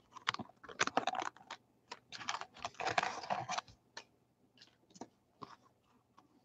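Wax-paper wrapper of a 1990 Fleer baseball card pack crinkling and crackling as it is torn open and the cards are pulled out. The crackling stops about three and a half seconds in, leaving a few faint clicks as the stack of cards is handled.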